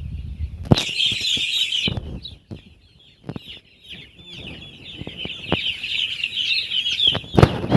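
A flock of six-day-old broiler chicks peeping continuously, with many overlapping high chirps. A loud rustling burst comes about a second in, and scattered knocks run through it.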